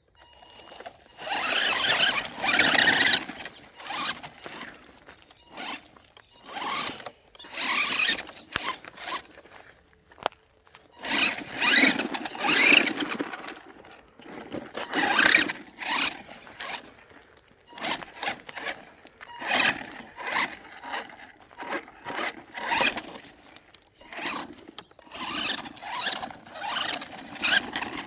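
Maverick Phantom XT electric RC truck driven off-road in repeated bursts of throttle: the motor whines and the tyres squeal and scrabble over the ground in irregular surges, each about a second long, with short pauses between.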